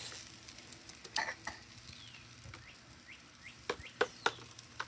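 Chicken drumsticks sizzling on a charcoal grill: a faint steady hiss with a few sharp pops and clicks, and several short high chirps in the middle.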